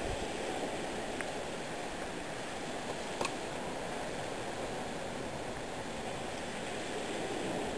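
Steady rushing noise of moving water, with two light clicks about a second and three seconds in.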